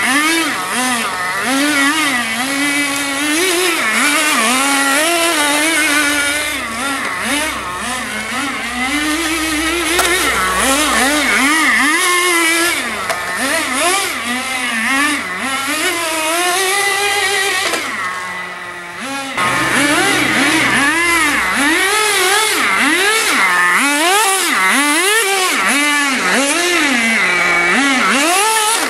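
Radio-controlled car's motor revving up and down with the throttle, its pitch rising and falling in quick repeated sweeps, easing off briefly about two-thirds of the way through before picking up again.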